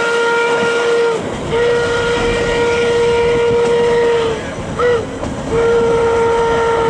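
Narrow-gauge 2-8-2 steam locomotive whistle sounding the grade-crossing signal: the end of one long blast, another long blast, a short toot, then a final long blast, over the rumble of the moving train.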